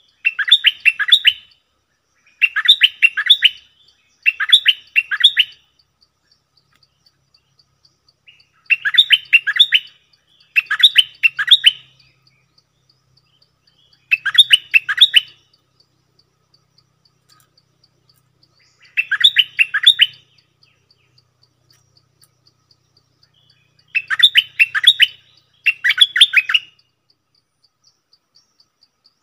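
Caged decoy bulbul singing about nine short phrases of rapid, chattering notes, each just over a second long, spaced a few seconds apart. A faint, fast insect ticking runs steadily underneath from about six seconds in.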